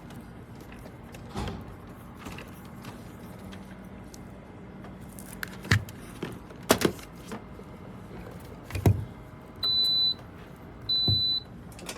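Handling knocks and clicks against a low steady hum, then two short high electronic beeps near the end, from the Dreo ceramic space heater's control panel.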